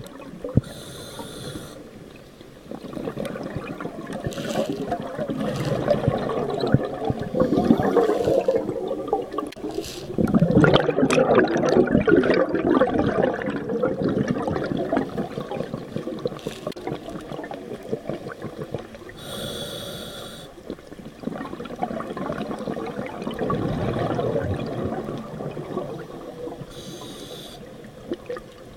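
Scuba diver breathing through a regulator underwater: brief hissing inhales, about six of them, each followed by a long bubbling rush of exhaled air.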